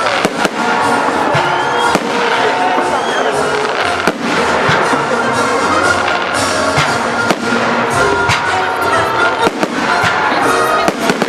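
Fireworks display: shells bursting in sharp bangs every second or two over a steady crackling din, with a crowd's voices under it.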